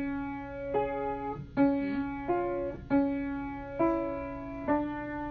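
Piano playing a slow melody, one note struck about every second, each ringing on until the next.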